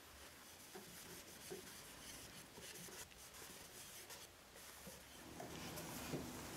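Faint soft rubbing of a cloth applicator pad wiping finish onto a wooden box, in short light strokes. About five seconds in, a steady low hum comes in underneath.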